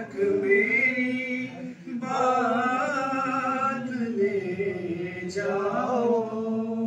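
A man solo-chants an Urdu devotional verse in praise of Imam Hussain. He sings in three long, drawn-out phrases with sliding pitch and short breaks between them.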